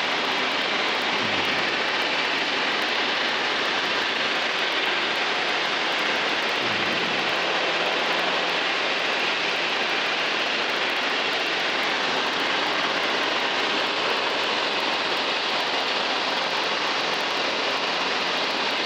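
Steady rush of airflow and engine noise from a Zenith STOL CH 750 light sport aircraft in level flight, an even roar with a faint low engine hum beneath.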